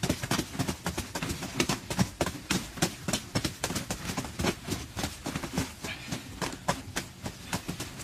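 Rapid, irregular knocking and tapping from hand tools at work, several strikes a second.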